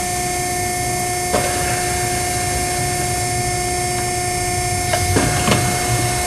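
Steady hum and hiss with a single knock about a second in and a few clicks and clunks around five seconds in, as the foot pedal is held down to press the seam welder's air-bag clamping fingers onto the sheet with rising pressure.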